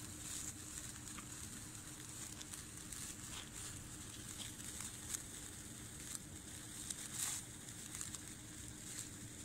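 Small sparkler burning on the ground: a faint, steady fizzing hiss broken by a few sharp crackles, the loudest about seven seconds in.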